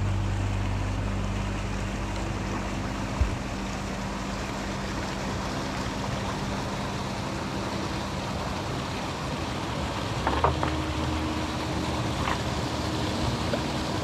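Steady hiss of water around a kayak near a small stream tumbling into the loch, with a soft knock about three seconds in and a sharper knock at about ten seconds. Slow, calm background music of held low notes runs underneath and changes chord at about ten seconds.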